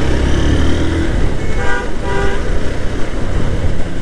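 Two short vehicle-horn toots in quick succession about a second and a half in, over steady low road and traffic rumble from riding in city traffic.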